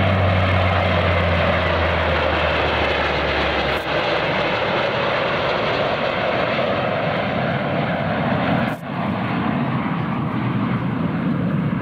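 A CC-130 Hercules's four turboprop engines and CF-18 Hornet jets flying past together in refuelling formation: a steady, loud aircraft engine roar. A low propeller hum runs under it for the first four seconds, and the sound briefly drops out about four and nine seconds in.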